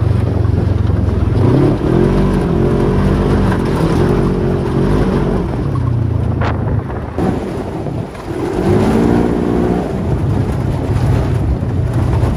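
Polaris RZR 1000 side-by-side's parallel-twin engine running hard on a gravel dirt trail, its revs rising and falling several times with the throttle over a steady low rumble. The tyres crunching over the gravel add a constant noise beneath it.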